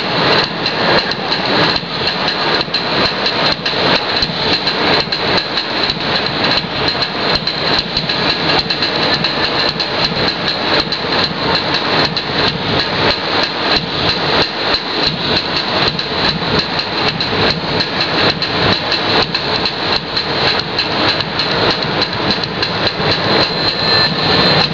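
Music for an oro, a Balkan folk line dance, with a fast, steady beat of sharp knocks from the dancers' feet stamping and stepping on the floor, without a break.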